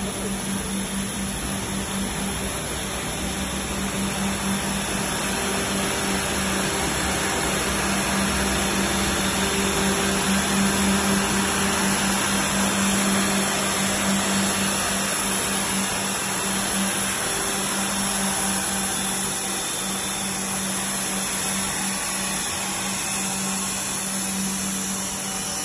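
Steady machinery noise on an air compressor factory floor: a constant motor hum under a broad, even hiss.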